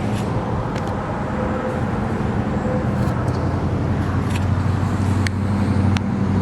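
Steady low motor-vehicle rumble with an even hum over a haze of noise, and a few sharp clicks.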